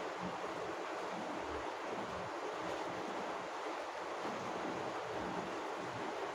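Steady rain falling, heard from inside a house: an even hiss with irregular soft low thuds beneath it.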